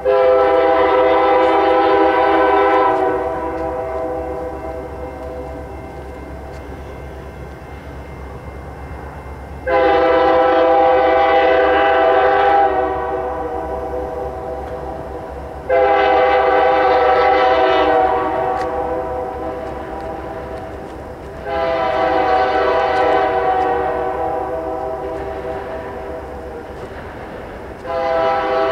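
Horn of a diesel locomotive, UP SD70M 4636, at the head of an approaching freight train. It sounds five long blasts of a chord of steady tones: one already sounding at the start, then about 10, 16 and 21 seconds in, and another near the end. Each blast trails off slowly, over a steady low rumble from the train.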